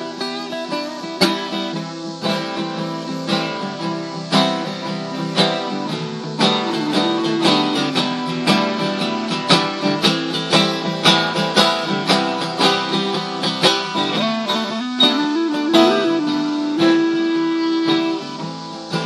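Instrumental break of a folk song: acoustic guitars, one a twelve-string, strummed in a steady rhythm while a clarinet plays the melody. The clarinet ends its line on a long held note near the end.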